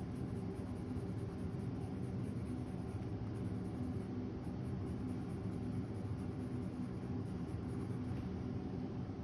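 Steady low background hum and rumble with a few faint constant tones, no distinct events.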